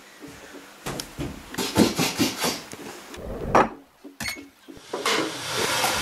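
Kitchen handling sounds while tea is made: a string of knocks, clicks and clatters of cupboard doors, a mug and crockery. A hiss rises near the end.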